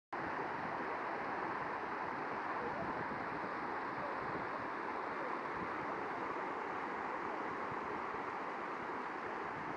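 Steady rushing of floodwater: an even, unbroken roar with no pauses.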